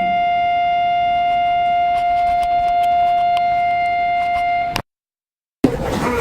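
A single steady tone, held at one unchanging pitch and level for nearly five seconds, that cuts off abruptly. After a moment of dead silence, a new stretch of mixed, noisy audio starts suddenly near the end.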